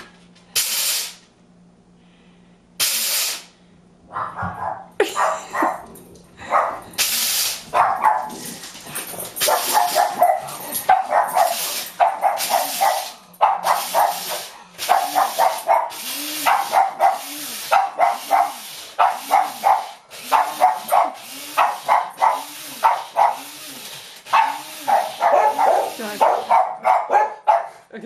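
A pug barking over and over at a running coffee grinder. The grinder's whirr starts as a few short bursts, then runs steadily from about five seconds in under rapid, repeated barks.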